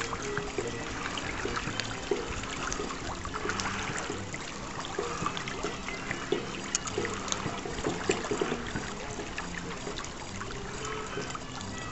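Lake water lapping and trickling at the shore: a steady wash broken by many small splashes and clicks.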